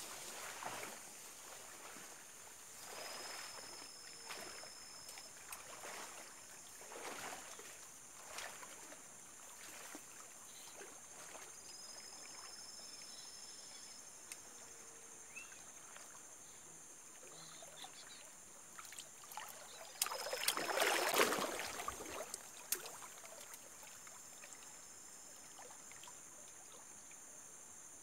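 Water swishing and sloshing as a person wades waist-deep through a flooded river, in soft swells every second or two and a louder surge of splashing about two-thirds of the way through, over a steady high hiss.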